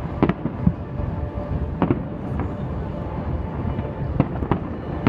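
Fireworks display: aerial shells bursting in a continuous low rumble, with several sharp bangs standing out.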